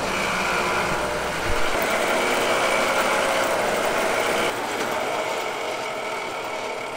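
Old metal lathe running, its chuck spinning a metal tube while a cutting tool bores the inside, a steady machining noise with a hum and a couple of whining tones. About four and a half seconds in the low hum drops out and the sound eases a little.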